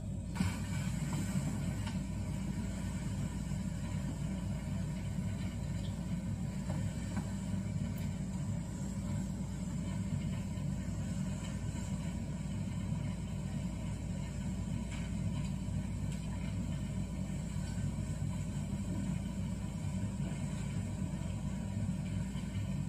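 Steady low rumbling hum with faint background noise, unchanging throughout; no speech.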